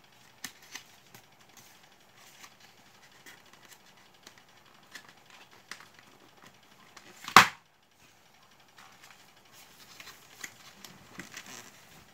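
Cardboard packaging and a plastic power bank being handled: light taps, scrapes and small clicks, with one sharp, loud knock about seven seconds in.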